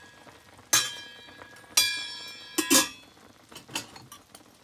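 Metal kitchen utensils clinking with a bright ringing tone: three sharp strikes about a second apart, the last a quick double, then a few faint taps. This is typical of a steel spoon knocking against a steel spice container while turmeric is measured out.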